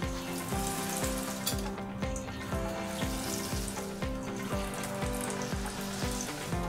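Tempura-battered enoki mushrooms sizzling in hot oil, starting as they are lowered into the pan, over background music with a steady beat.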